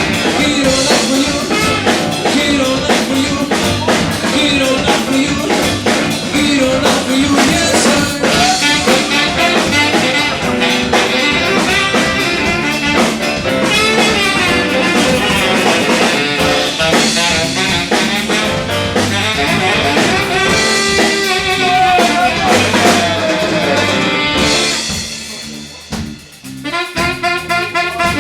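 Live band playing an instrumental passage with drum kit and brass; the music drops out briefly near the end, then horn notes come back in.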